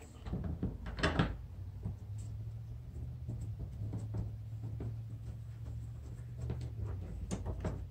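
Light clicks and taps of screws and plastic mounting parts being handled by hand, a cluster about a second in and a few more scattered after it, over a steady low hum.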